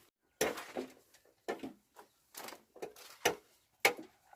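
A series of irregular knocks and clatters, about six in four seconds, with near-silent gaps between them.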